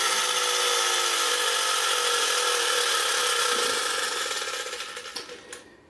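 Sutcliffe Viking ocean liner's clockwork motor running down after being wound by its propeller, with the propeller spinning in air. A steady whirr that drops slowly in pitch and fades out near the end as the spring unwinds.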